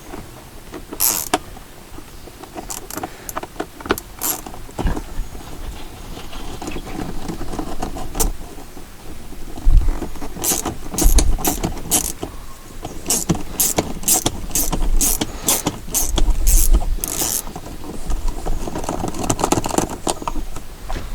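Clicks and knocks of a hand Torx driver backing screws out of a car door trim panel. About halfway through there is a run of sharp, evenly spaced clicks, roughly two a second, with occasional low bumps against the door.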